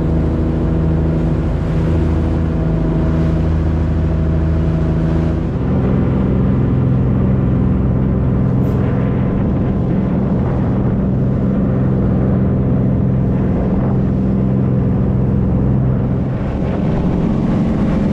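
A fishing boat's engine running steadily under way, over the rush of water along the hull. About five and a half seconds in, the engine note changes abruptly to a different steady pitch.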